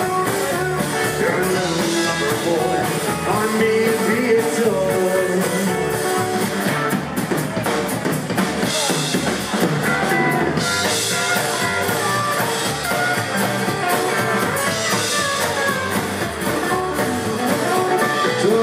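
Live rockabilly band playing an instrumental break: electric guitar, acoustic guitar, upright double bass and drum kit.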